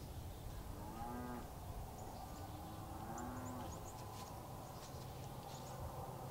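Cattle mooing in the distance: a short call about a second in, then a longer one around three seconds in, each rising and falling in pitch.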